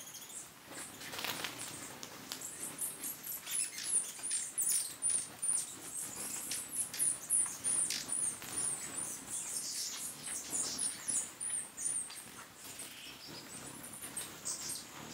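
Hummingbirds at a nectar feeder giving quick series of very high, thin, squeaky chips, with the whir of their wings as they hover and dart in. The chipping is busiest through the middle and thins out near the end.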